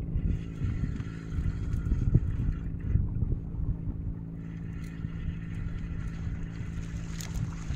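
Boat engine running steadily, with uneven low rumbles over it.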